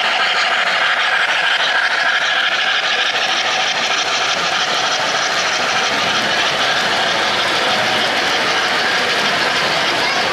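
O-gauge three-rail model trains running close by: a steady rattle and whir of wheels on the track and the locomotive motors.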